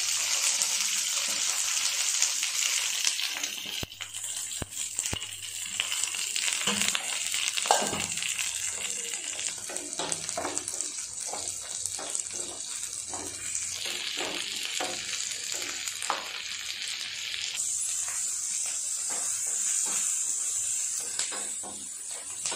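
Green chillies sizzling in hot oil in a nonstick pan, with a steady hiss that rises and falls. A wooden spatula stirs them, knocking and scraping against the pan in a run of light knocks from about six seconds in.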